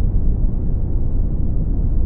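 Steady brown noise: a deep, even rumbling hiss, strongest in the bass and fading toward the treble, with no changes.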